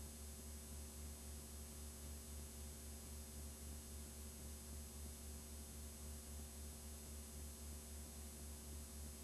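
Faint steady low electrical hum with hiss from a blank, unrecorded stretch of videotape playing back as static; the hum wavers slightly a few times a second.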